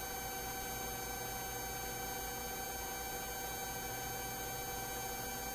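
Steady low hiss with a faint electrical hum and a few thin steady tones: the background of the police helicopter's radio and intercom recording between transmissions.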